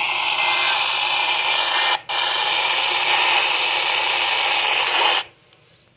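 Steady hiss of radio static from a receiver, dropping out for an instant about two seconds in and cutting off suddenly about five seconds in.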